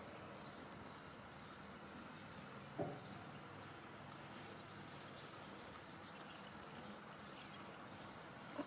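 Faint outdoor background with a short high chirp repeating about twice a second, from a small bird or insect. A soft knock comes about three seconds in, a single sharp, falling high chirp a little after five seconds, and another knock at the very end.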